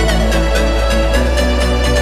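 Electronic dance music with a steady beat and held bass notes.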